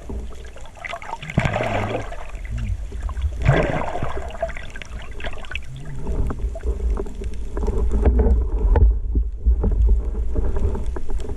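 Sea water sloshing and splashing, with a steady low rumble and two louder surges of splashing early on.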